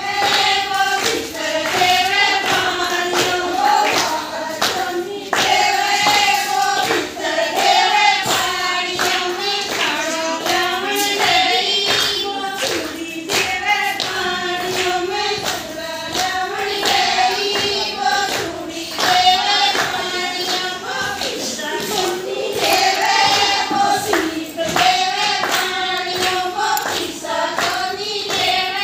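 A group of women singing a Haryanvi folk song together, with steady hand clapping in time.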